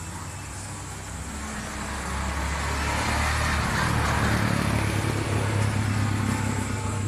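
A motor vehicle's engine running with a low hum. It grows louder about two seconds in, and a rush of noise swells to a peak near the middle.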